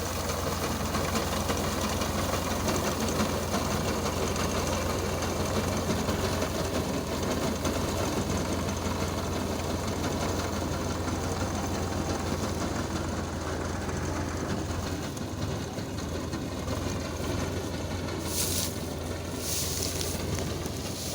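Engine of a wheat-harvesting machine that cuts the crop and lays it in rows, running steadily with a low hum. Two short hissy bursts come near the end.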